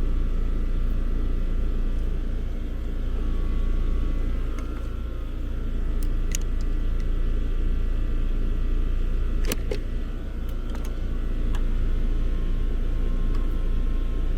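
Steady low mechanical rumble throughout, with a few small clicks and taps of hand work on wiring and terminals, including a pair about six seconds in and another pair around nine and a half seconds.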